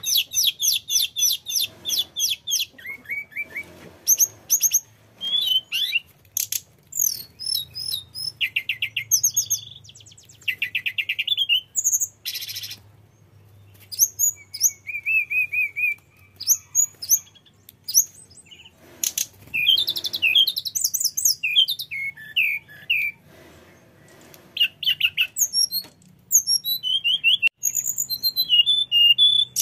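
Male hill blue flycatcher singing a long, varied song: quick trills, clear whistled phrases and chattering notes follow one another with only short pauses between them.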